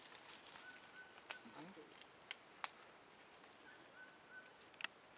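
Steady high-pitched drone of insects, with a few faint sharp clicks scattered through it.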